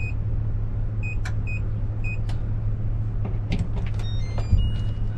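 Van engine idling steadily, heard from inside the cabin, with several short high electronic beeps in the first two seconds and a few clicks and brief tones later on.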